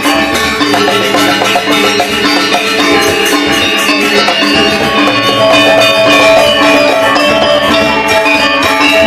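Balinese gamelan ensemble playing a tabuh kreasi: bronze metallophones ringing in fast interlocking strokes over drums, without a pause.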